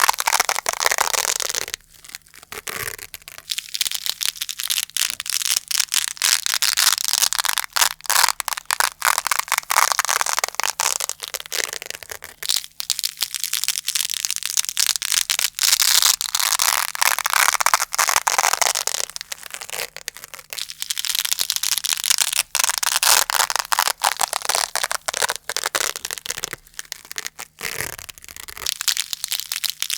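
Velcro (hook-and-loop fastener) being ripped apart close to the microphone: a dense, crunchy crackle of tiny clicks in long strokes of several seconds, with short pauses between them.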